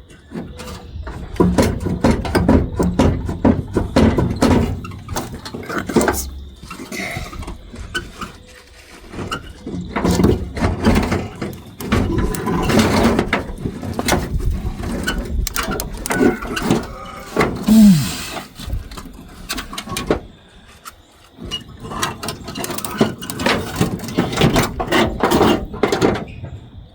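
Irregular metal clanks, knocks and scraping of hand tools and engine parts being worked loose during the teardown of a Ford 390 FE V8, with a short falling squeal a little past the middle.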